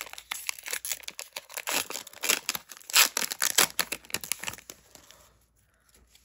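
Foil wrapper of a Pokémon trading-card booster pack being torn open and crinkled in the hands, a rapid crackling that dies away about five seconds in.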